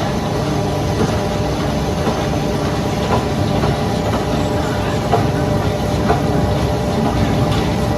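Heavy mill machinery running steadily with a low hum, with a few sharp knocks.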